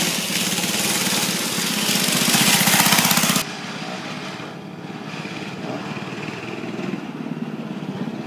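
Kawasaki Coyote mini bike engine running under way, with a fast even putter. It is loud and close at first. After an abrupt drop about three seconds in, a farther mini bike engine grows louder toward the end as it comes near.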